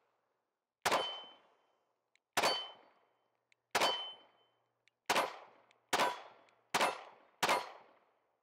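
Seven 9mm pistol shots from a Smith & Wesson Equalizer, evenly paced about a second and a half apart for the first three, then quicker at about one every 0.8 s. Several shots are followed by the brief ring of a struck steel target plate.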